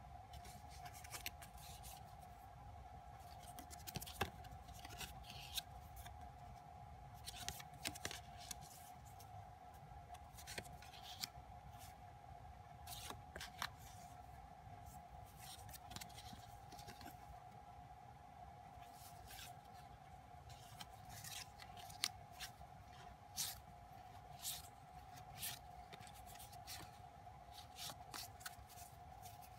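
Glossy photocards and stiff black paper-frame cards being handled and shuffled: faint scattered slides, taps and flicks, over a steady faint hum.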